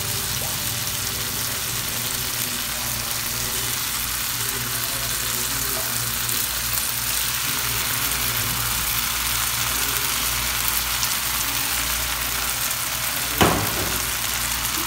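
Tomato sauce and sautéed onion, garlic and carrots sizzling steadily in a hot pan of oil, with a single sharp knock about 13 seconds in.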